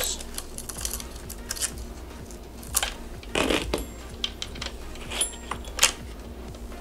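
Steel saw chain of a Husqvarna 450 chainsaw clinking and rattling as it is pulled off the guide bar and drive sprocket and piles up, its links giving scattered sharp clicks and a longer rattle about three and a half seconds in.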